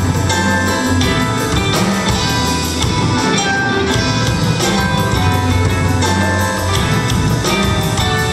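Band music with a drum kit keeping a steady beat over a bass line, with no words recognised.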